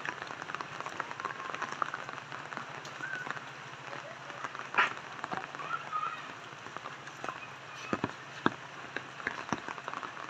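Rain falling on wet pavement and surfaces: a steady hiss dotted with many sharp drip taps, one louder tap about five seconds in.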